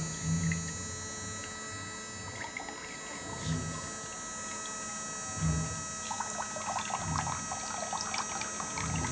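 Small battery-powered mini DC water pump running with a steady hum while its thin stream of water pours into a small steel bucket and then splashes into a shallow tray of water. There are a few soft bumps as the bucket is handled.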